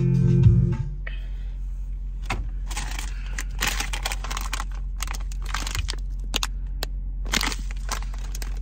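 Paper or plastic grocery bags rustling and crinkling as they are handled, with scattered clicks, over a steady low hum inside the van. A brief musical chord fades out in the first second.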